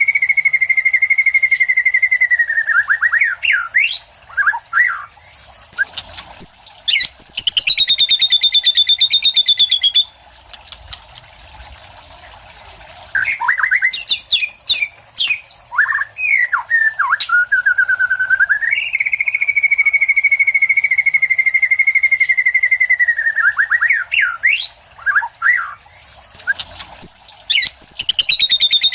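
White-rumped shama (murai batu) singing: long, fast trills held on one pitch, some lower and some higher, broken by quick sweeping whistled notes. There is a pause about a third of the way in, then the same pattern again.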